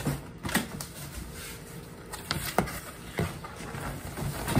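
Cardboard shipping box being handled: flaps bent back and the inner box pulled out, giving a series of irregular cardboard knocks, scrapes and rustles.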